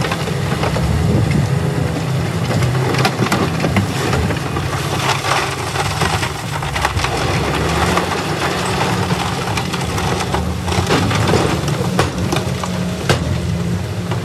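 A load of broken rock sliding out of a tipped dump truck bed and crashing onto a rock pile, a continuous clatter with many sharp knocks, over the steady running of a heavy diesel engine.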